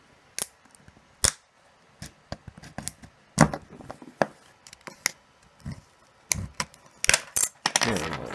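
Plastic shell of a cheap USB power bank being pried open: a series of sharp plastic clicks and snaps as the case clips let go, the loudest about three and a half seconds in, with a longer grating stretch near the end as the shell comes apart.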